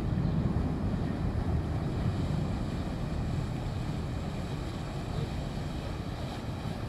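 Steady low rumble of a small passenger ferry's engine as it passes close by, slowly fading, with wind buffeting the microphone.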